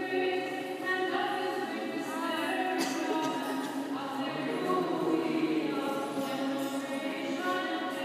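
Church choir singing unaccompanied Orthodox liturgical chant, several voices holding long notes that change every second or so.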